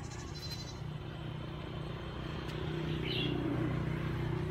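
A vehicle engine running steadily, getting louder from about halfway through. Two brief high chirps come over it, one at the start and one about three seconds in.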